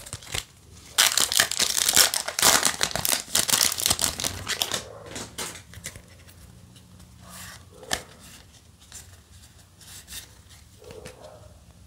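A Yu-Gi-Oh! booster pack's wrapper torn open and crinkled, a dense run of ripping and rustling starting about a second in and lasting about four seconds. Then quieter scattered ticks and rustles of the cards being slid through by hand.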